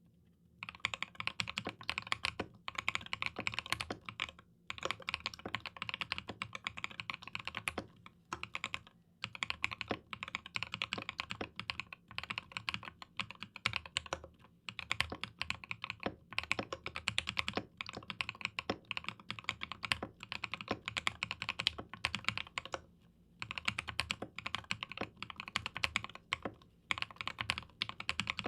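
Mechanical keyboard with Mekanisk Ultramarine V2 linear switches on an aluminium plate being typed on quickly in continuous runs of keystrokes, broken by short pauses.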